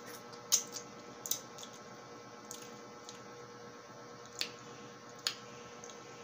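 Wet squishing and sucking mouth sounds of a person eating a peeled lemon wedge, with four sharp wet smacks, the loudest about half a second in and the others at about one, four and five seconds in. A steady faint hum runs underneath.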